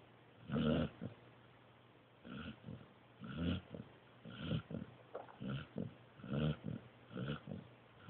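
Pointer puppy snoring in its sleep: short, rhythmic snores about once a second.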